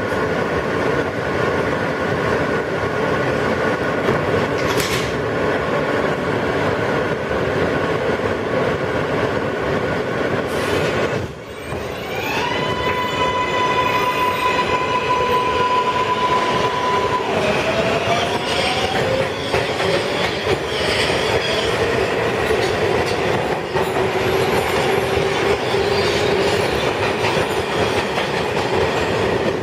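R143 subway car running on the rails: a steady rumble and rattle from the wheels and car body. About eleven seconds in the noise dips briefly, then a whining tone rises and holds steady for several seconds, followed by a lower whine that climbs in pitch.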